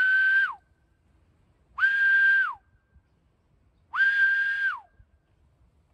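Three long whistle calls about two seconds apart, each holding one steady high note and sliding down as it ends: a recall signal calling a kelpie back from a distance.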